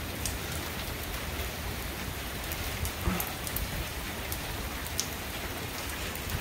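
Steady rain falling during a thunderstorm, an even hiss with scattered sharp ticks of individual drops striking.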